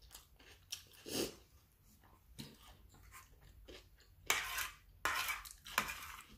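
A fork scraping and tapping on a plate, with two longer scrapes about four and five seconds in, and quiet chewing and mouth sounds between.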